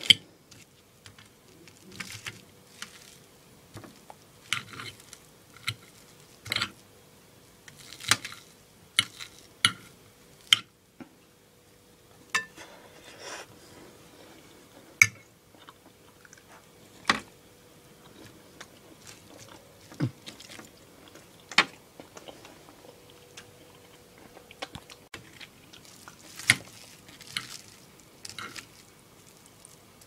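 A metal fork clinking and scraping on a china plate in irregular sharp clicks, with chewing close to the microphone.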